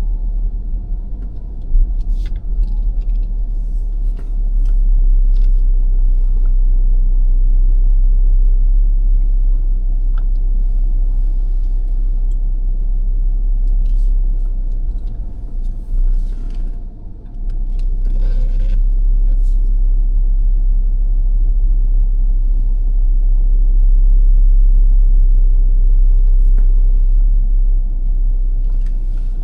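Car on the move: a steady low rumble of road and engine noise, with a few small clicks and ticks scattered through it and a brief drop in level about two-thirds of the way in.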